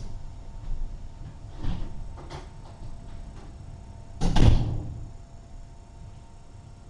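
A few light knocks and clunks, then a door shutting with a thud about four seconds in.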